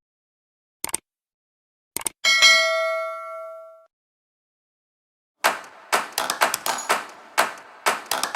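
Two faint clicks, then a single bell-like ding that rings and fades over about a second and a half. After a short silence, a run of light tapping strikes begins near the end.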